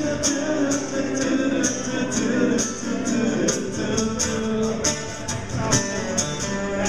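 Song music between sung lines: guitar-led backing with a steady beat of high percussion strokes, a few times a second.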